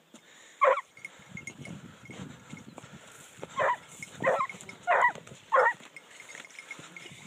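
A scenthound on a tracking lead giving tongue while working the trail of wild boar: one short bay just under a second in, then four short bays in quick succession, about two-thirds of a second apart, a few seconds later.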